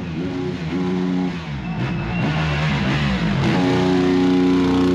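Motocross dirt bike engine running at low speed, its note rising and falling as the throttle is worked, growing louder as the bike comes close about four seconds in.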